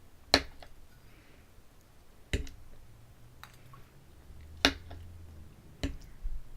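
Eating sounds: four sharp clicks a second or two apart, with quiet in between.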